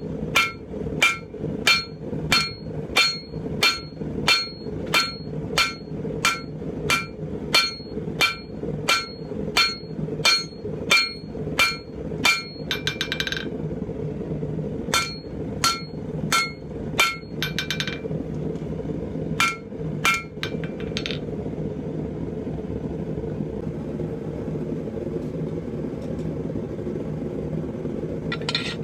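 Blacksmith's hammer striking hot steel on an anvil while forging a pipe tomahawk head: even blows about two a second, each with a ringing anvil tone. After about 12 seconds the blows come in short groups broken by quick flurries of light taps, then stop about two-thirds of the way through, leaving the steady hum of the forge running, with a few metal clinks at the very end.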